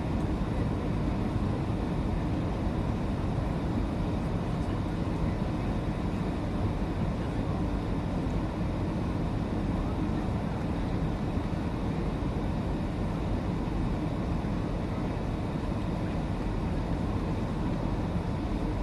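Steady airliner cabin noise: a constant low rumble of engines and rushing air heard from inside the passenger cabin.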